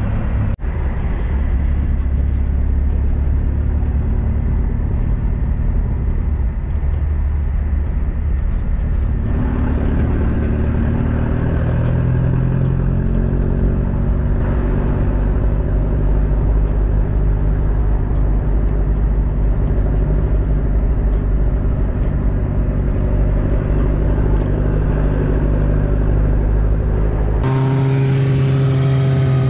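Engine and road noise heard from inside the open rear cabin of a songthaew pickup-truck taxi on a winding hill road: a loud, steady deep rumble with the engine note rising and falling. Near the end the deep rumble drops away and the engine note comes through more clearly.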